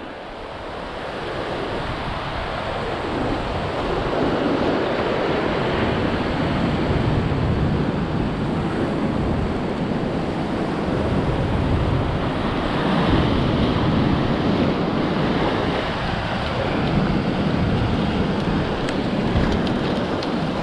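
Ocean surf washing and foaming over a rock ledge, with wind buffeting the microphone. It builds over the first few seconds, then holds steady.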